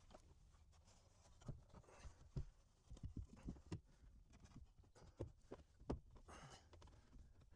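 Near silence broken by faint, irregular light knocks and taps of parts being handled and set down.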